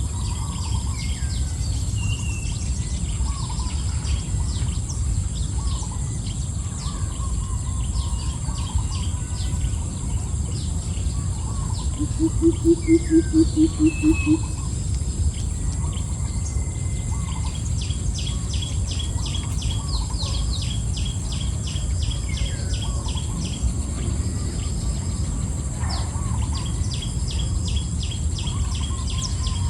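Birds chirping and calling over and over against a steady high-pitched insect drone and a low rumble. About halfway through comes a loud run of about nine low hooting pulses, about four a second.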